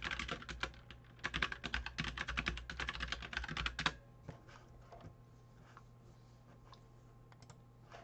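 Computer keyboard typing in quick runs of keystrokes for about four seconds, then stopping, with only a few faint scattered clicks after.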